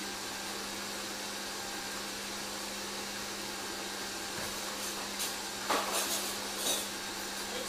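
Electric stand mixer running steadily, its motor humming as it beats cake mixture until light and fluffy. A few light knocks and clatters come about five to seven seconds in.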